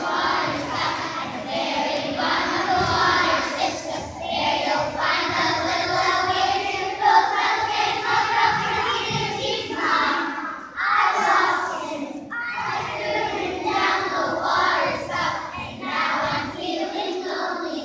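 A group of children singing together, many young voices held on sustained notes with short breaks between phrases.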